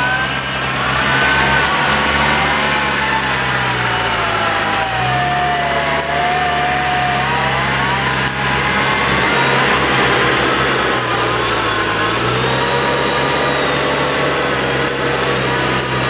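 Jeep Wrangler's engine running while its electric front winch whines, hauling in the taut cable under load. The whine sags in pitch about five seconds in and then climbs back up.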